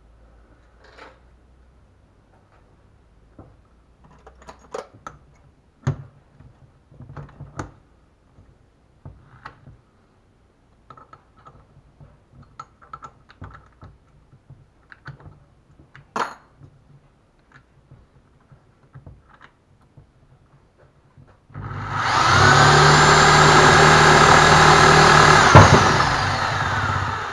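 Scattered clicks and knocks of handling, then an electric drill runs at full speed for about four seconds, spinning a car alternator that has been converted with a permanent-magnet rotor to serve as a wind generator. The drill then winds down with a falling whine.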